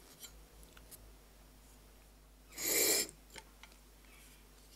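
A plane blade in a roller honing guide pushed once across a waterstone: a half-second rasping scrape about two and a half seconds in, with a few faint clicks of the guide being handled before it. The stroke hones an intermediate flat of a cambered edge, the guide tilted by a feeler gauge.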